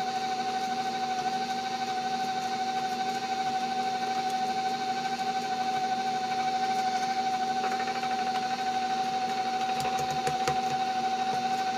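Electric mixer running at a steady speed with an even motor whine, beating cake batter as the flour is worked in.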